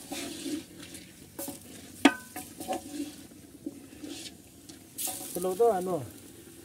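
Spoon stirring chunks of meat frying in a large metal pot over a wood fire, with scraping, soft sizzling and a sharp ringing clank of the spoon against the pot about two seconds in.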